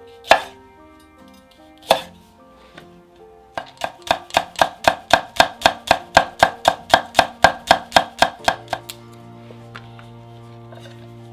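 Kitchen knife chopping on a cutting board: two single sharp chops, then a fast, even run of about five chops a second for some five seconds.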